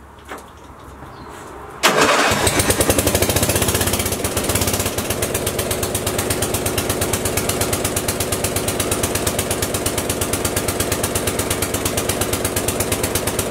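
Ride-on mower's petrol engine, started on choke, firing up suddenly about two seconds in and then running steadily with a rapid, even firing pulse, a little louder for the first few seconds before settling.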